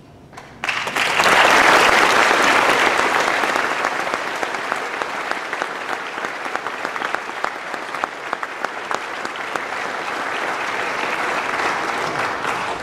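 Audience applauding, a dense patter of many hands clapping. It starts suddenly about a second in, is loudest at first, eases slightly and stops sharply near the end.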